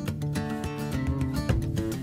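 Background music with a strummed acoustic guitar.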